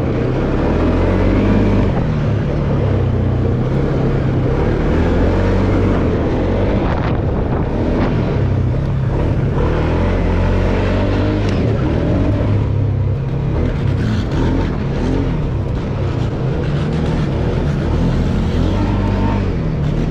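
Single-cylinder ATV engine running under load while riding over loose gravel, its note rising and falling with the throttle.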